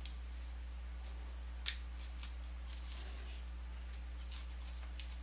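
Hands handling a trading-card box and its packaging: light rustling and a few small clicks, with one sharp snap about a second and a half in. A steady low electrical hum runs underneath.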